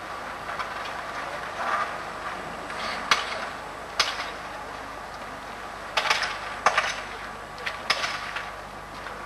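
A few scattered sharp knocks and clicks, about five in all, over a faint steady hiss.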